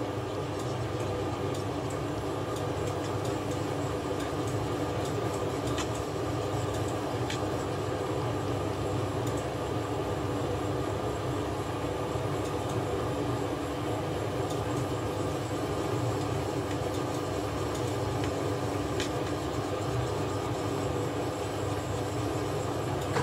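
A straight razor's blade being rubbed in circles on a wet, very fine Hatahoshi whetstone in its gray slurry, a steady wet grinding scrape.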